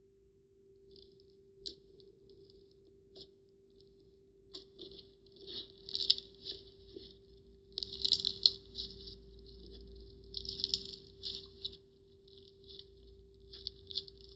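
Slime being squeezed and worked by hand, giving irregular runs of small wet clicks and crackles, densest about six, eight and ten to eleven seconds in, over a faint steady hum.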